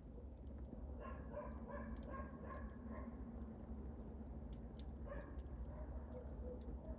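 Wood fire crackling, with scattered sharp pops over a low steady rumble. Runs of short pitched squeaky notes come in about a second in and again around five seconds.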